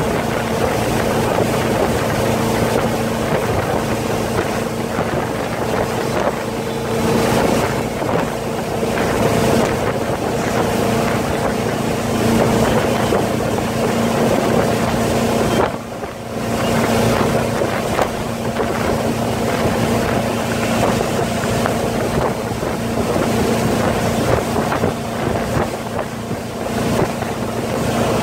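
Motorboat engine running steadily under way, towing an inflatable tube, with wind buffeting the microphone and the rush of the wake. The sound dips briefly about halfway through.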